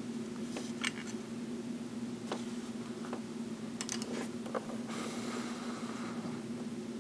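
Small clicks and taps of a celluloid Parker Vacumatic fountain pen being handled and uncapped, the cap set down on the desk, followed by a brief rustle, over a steady low hum.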